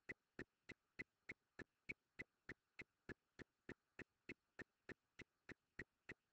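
Faint, regular clicking, about three clicks a second, over otherwise near silence.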